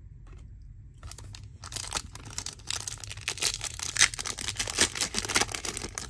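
A Bowman's Best baseball card pack being torn open, its wrapper crinkling and crackling from about a second in.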